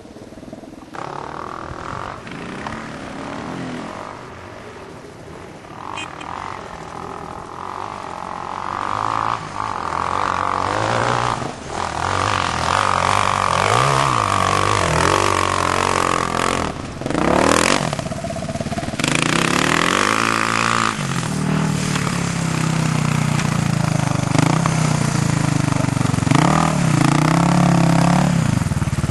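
Dirt bike engine revving up and down as the bike rides over sandy terrain, its pitch rising and falling with the throttle and growing louder as it comes close. A short rush of noise a little past halfway.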